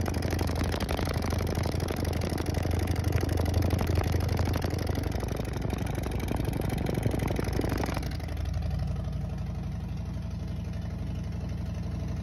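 Harley-Davidson Milwaukee-Eight V-twin idling through its stock headers with the catalytic converter drilled out, heard close to the exhaust outlet. About eight seconds in, the exhaust note turns duller and slightly quieter.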